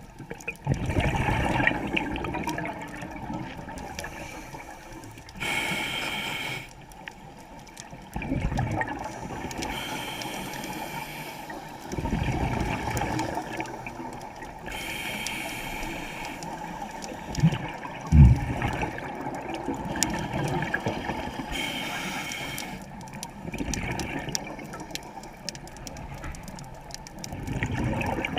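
Scuba diver breathing through a regulator underwater: a short hiss on each inhale, then a rush of exhaled bubbles. The cycle repeats several times, one breath about every seven seconds.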